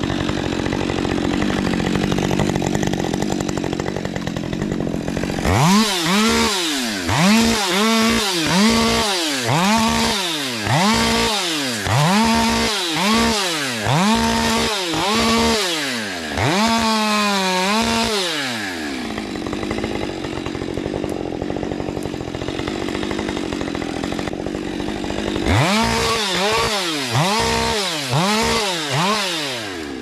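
Husqvarna 550 XP Mark II two-stroke chainsaw revved up and down in quick repeated strokes, about one a second, for some thirteen seconds from about five seconds in, as in a run of short cuts one after another. Between runs it drops back to idle, and a second short run of revs comes near the end.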